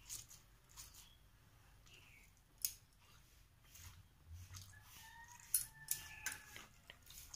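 Light metallic clinks of a hand and bangles against steel bowls while rice and curry are mixed by hand, a few sharp clicks standing out near the middle and again about three-quarters through. A faint thin whistling tone sounds in the background near the end.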